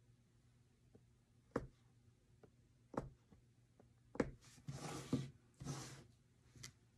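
A few sharp, soft taps from punch-needling fabric stretched on a frame, spaced more than a second apart. Then two brief rustles of the cloth being handled, about two-thirds of the way in.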